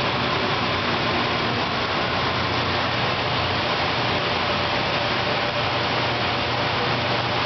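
Semi-automatic washing machine for 5-gallon water jugs running: a steady motor hum under an even hiss, unchanging throughout.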